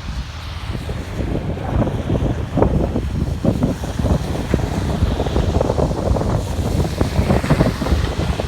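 Wind blowing across the microphone in uneven gusts, a loud buffeting noise.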